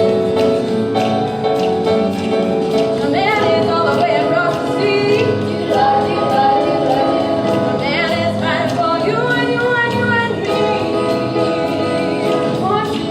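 Voices singing a song from a stage musical over instrumental accompaniment with a steady beat.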